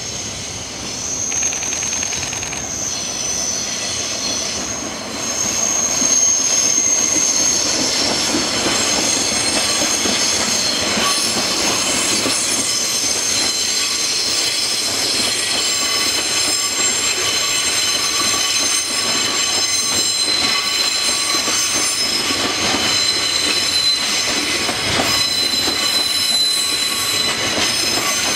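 Freight train of container wagons hauled by a DD16 diesel locomotive rolling past on a curve, getting louder about five seconds in. The wheels squeal in several steady high tones, with clicks from the rail joints.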